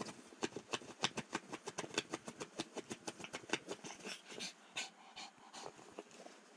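Shih tzu digging and pawing at a pillow to get at a tennis ball: a rapid run of short scratchy scrabbling sounds, about eight a second for the first four seconds, then sparser.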